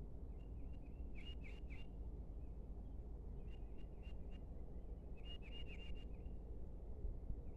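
A bird chirping in short bursts of several quick, high notes, repeated every second or two, over a steady low outdoor rumble.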